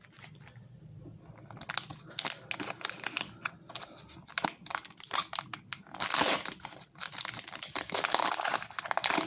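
Foil wrapper of a Pokémon booster pack being crinkled and torn open: a rapid run of crackles that starts about a second and a half in and is loudest around the middle and near the end.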